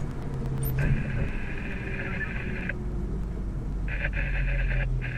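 A garbled, tone-like radio transmission in the vehicle's cabin, starting about a second in, cutting out for a moment in the middle, then returning with short breaks, over the steady hum of the engine.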